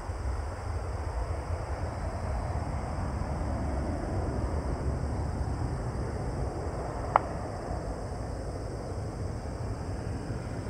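Boeing 737-800's two CFM56-7B turbofans heard from the ground as the jet climbs away after takeoff: a steady distant rumble and hiss that swells a little midway and then eases. A single sharp click about seven seconds in.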